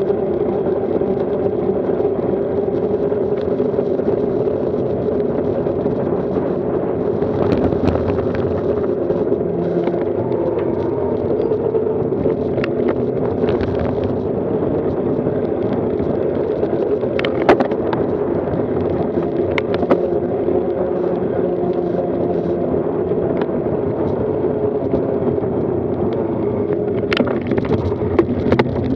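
Steady rush of wind and tyre noise from a road bicycle ridden at speed in a group of cyclists, heard on a camera mounted on the bike. A few sharp clicks and knocks come through, one about seventeen seconds in and a couple near the end.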